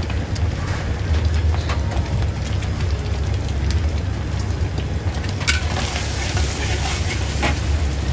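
Beaten egg sizzling in oil in a wok over a gas wok burner, with the burner's steady low rumble underneath and the metal ladle scraping and knocking against the wok now and then. The sizzle turns louder and brighter about five and a half seconds in.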